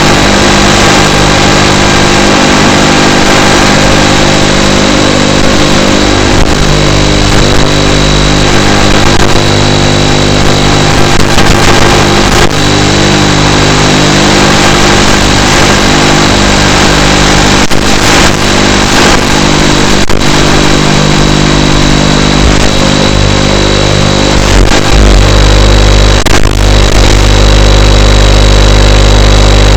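Small FPV drone's motors and propellers running, heard close on board as a loud steady whir of several held tones over rushing air, with a few short clicks and a stronger low rumble near the end.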